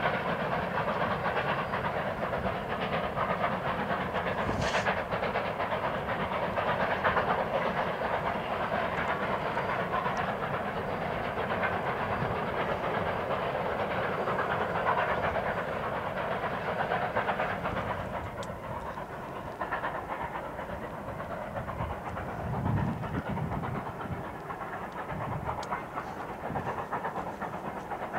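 Narrow-gauge steam locomotive working hard up a steep 4 percent grade with a heavy freight train, exhaust and steam mixed with the rumble and clatter of the cars' wheels. The sound turns quieter and duller about two-thirds of the way through.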